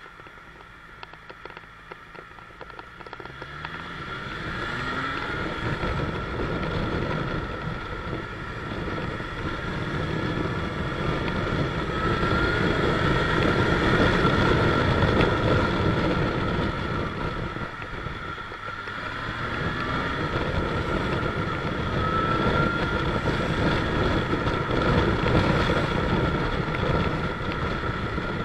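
Motorcycle engine running quietly, then pulling away about four seconds in, its revs rising through the gears several times. Wind rush on the microphone grows as the bike picks up speed, with a short easing off before it accelerates again.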